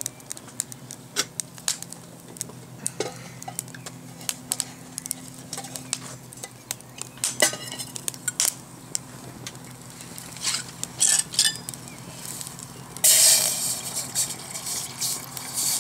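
Wood fire crackling in a folding steel Firebox stove, with sharp pops and clicks throughout and metal clinks as a pot is set on top. About thirteen seconds in, water starts pouring steadily into the pot.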